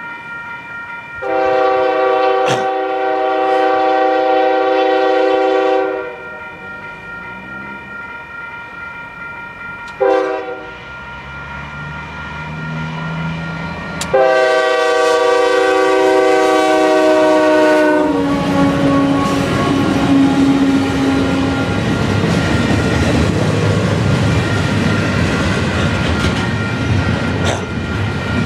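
Union Pacific diesel freight locomotive sounding its air horn in three blasts, long, short, then long, the tail of the signal for a grade crossing. From about two-thirds of the way through, the locomotives and the double-stack container cars rumble and clatter past close by.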